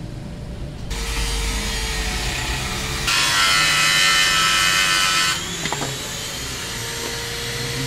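A power tool running at work, much louder for about two seconds in the middle, where it starts and stops abruptly; a short knock follows.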